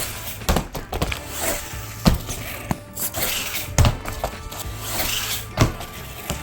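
Background music with a beat of recurring drum hits.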